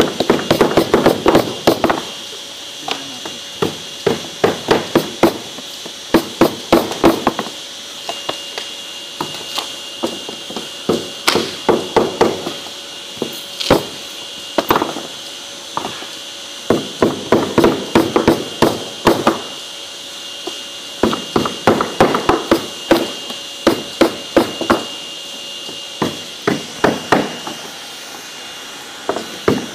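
Claw hammer tapping metal corner protectors onto hardcover folder covers on a table: quick runs of light strikes, several a second, with short pauses between the runs.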